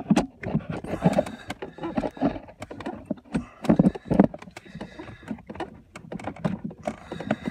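Irregular clicks, knocks and clunks of hand work on a C6 Corvette clutch pedal: the pedal is pushed up against its stop while needle-nose pliers and the new assist return spring's clip scrape and tap on the pedal bracket. The camera mount is jostled and bumped in between.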